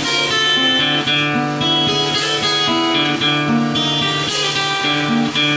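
Live acoustic blues played on guitar and a drum kit: the guitar picks a blues line of plucked notes over a held low note, with the drums keeping time underneath.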